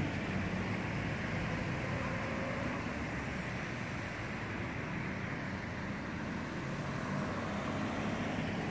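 A car moving slowly makes a steady low rumble of engine and road noise.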